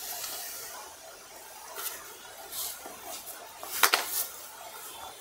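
Woven saree fabric rustling and swishing as it is handled, lifted and laid flat, with a sharp click about four seconds in.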